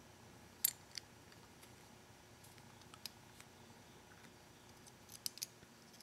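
Faint, sharp metal clicks and taps as the steel backing plate is fitted by hand onto a motorcycle helmet lock. There are two clicks about a second in, two more around three seconds, and a quick cluster near the end.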